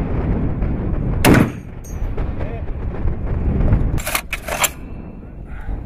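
A single shot from a Barrett M82/M107 .50-calibre semi-automatic rifle about a second in, the loudest sound here. Two sharper, higher cracks about half a second apart follow around four seconds in, over a steady low rumble.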